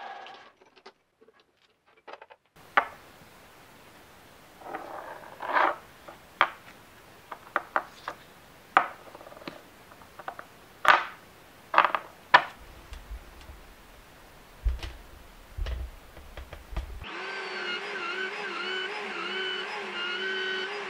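A string of separate sharp clicks and knocks as small machined aluminium parts are handled and set down on a wooden workbench. About 17 s in, a drill press starts and runs with a steady, slightly wavering whine as it bores into an aluminium block.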